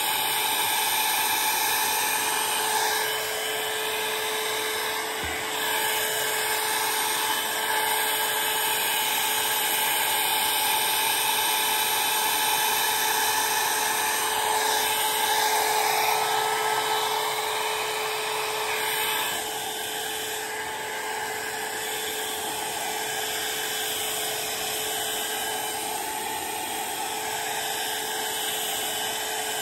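Handheld hair dryer running steadily, a constant motor whine over the hiss of rushing air, as it blows through long hair. It drops slightly in loudness about two-thirds of the way through and keeps running.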